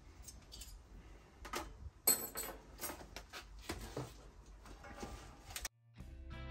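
Scattered light clinks and rustles of metal hanging skewers and their packaging being handled and set down on a wooden table, the sharpest clink about two seconds in. Near the end the sound cuts off abruptly and music starts.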